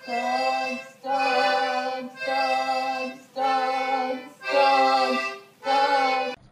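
Small red toy accordion playing a slow tune of six held chords, about one a second, with short breaks between them. The last chord cuts off suddenly near the end.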